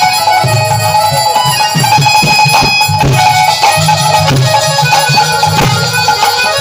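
Bengali kirtan music: two khol barrel drums beating a quick rhythm under a melody held on a keyboard.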